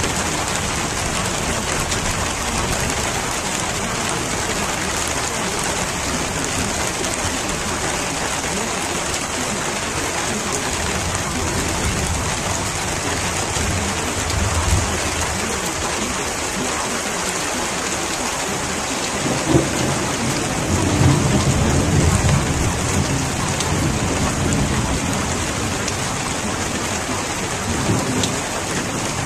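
Steady heavy rain with rolling thunder. Low rumbles swell in the middle and more strongly about two-thirds of the way through, with a brief one near the end.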